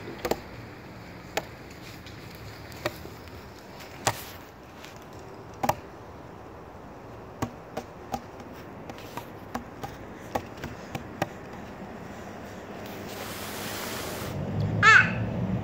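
Hands slapping a picnic tabletop: about a dozen sharp taps at irregular intervals. Near the end comes a brief rush of noise, then a short, loud squeal over a low rumble.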